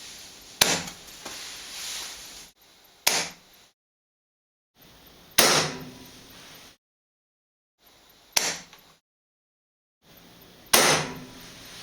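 FX2000 .22 pre-charged pneumatic air rifle firing five shots, each a sharp crack with a short fading tail, about two and a half to three seconds apart.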